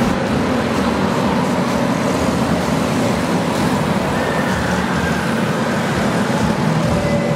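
Small engines of a pack of junior racing karts running hard together as the karts lap past, a steady continuous din.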